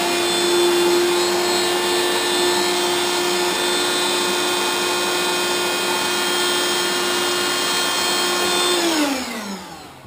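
Handheld vacuum running at a steady pitch as it sucks up fiberglass dust from a hole-saw cut, then switched off about nine seconds in, its motor winding down in pitch.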